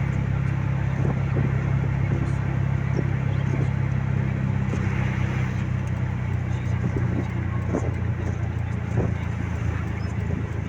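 Road vehicle travelling steadily: a constant low engine drone over a haze of road and tyre noise.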